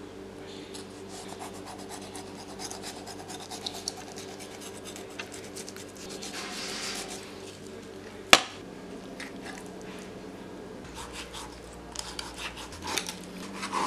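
Large cleaver-style knife scraping and cutting along a whole tilapia on a cutting board: a run of short rasping scrapes and clicks, denser for a moment around the middle. About eight seconds in comes one sharp knock, the loudest sound.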